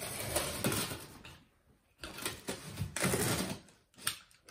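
Cardboard shipping box being cut open with a utility knife: two rasping, scraping passes of about a second and a half each, then a short knock near the end.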